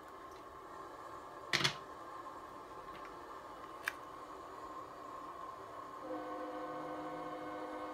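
Sharp plastic clicks of an HO scale model locomotive being handled on the track, the loudest about one and a half seconds in and a smaller one near four seconds. About six seconds in, a steady chord of several held tones starts.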